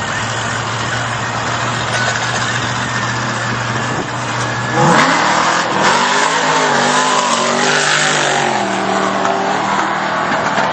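Drag-race truck engine idling with a steady low drone, then about five seconds in revving sharply up as the truck launches into a wheelstand, running loud at high revs for the next few seconds.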